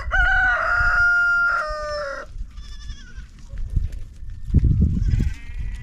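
Rooster crowing once, a loud call of about two seconds that holds one pitch and falls away at the end. Shorter, fainter animal calls follow over a low rumble that comes and goes.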